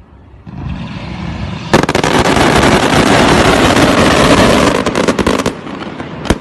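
Fireworks going off: a hiss builds, then about a second and a half in a dense crackling of many rapid pops breaks out for about four seconds. It thins to scattered cracks, and a single sharp bang comes near the end.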